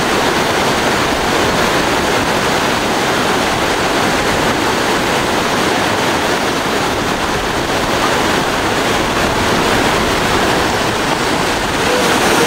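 Fast-flowing canal water rushing and churning into whitewater, a loud steady rush.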